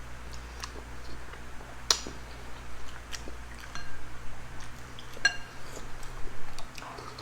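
Eating sounds at a table: scattered small clicks and clinks of utensils against dishes. One sharp clink comes about two seconds in, and a ringing clink a little after five seconds.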